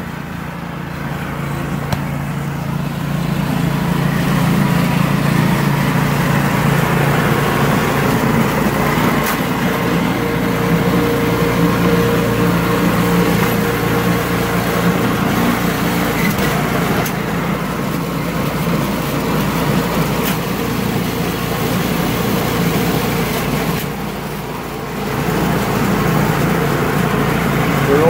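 John Deere TRS27 two-stage snowblower's small single-cylinder engine running steadily under load as the auger chews through deep, heavy wet snow and throws it from the chute. The engine note eases briefly near the end, then picks up again.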